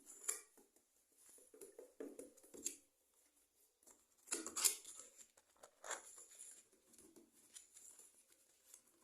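Small pets moving about, with irregular scratching, scrabbling and rustling. The sharpest scrapes come about half a second in and around the middle.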